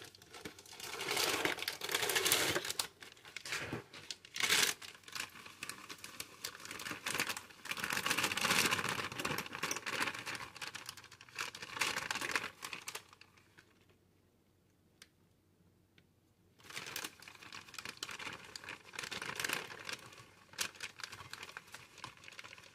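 Plastic inner bag of a Bisquick box crinkling as it is tipped and shaken to pour the baking mix into a plastic measuring cup. It comes in several spells, with a quiet pause of a couple of seconds partway through.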